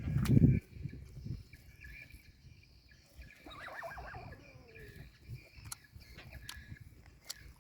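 Water buffalo calling: a short, loud, low grunt at the start, then a fainter, higher call that falls in pitch a few seconds later, with scattered light clicks between them.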